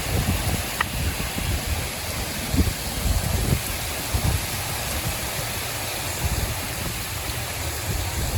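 Steady rain falling during a thunderstorm, with irregular low thumps of wind gusting on the microphone.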